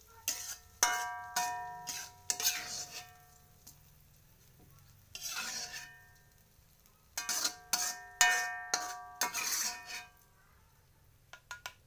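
Metal spatula scraping and knocking against an aluminium wok as cooked filling is scooped out. Each knock leaves the wok ringing. The clanks and scrapes come in two bunches, with a single scrape in the lull between them.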